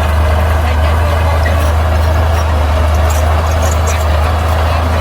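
Bulldozer's diesel engine running steadily, a low, even drone, with a few faint high clicks in the second half.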